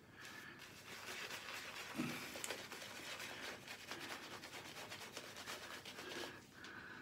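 Shaving brush lathering homemade shaving soap over a beard: a faint, fast, repeated wet brushing.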